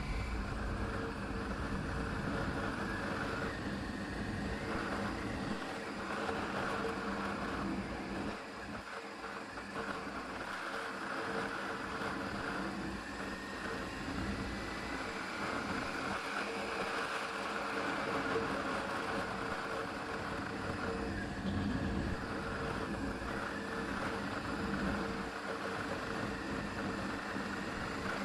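Motorcycle engine running while riding, a steady hum with rough noise over it. The low rumble thins out for a few seconds about a third of the way in.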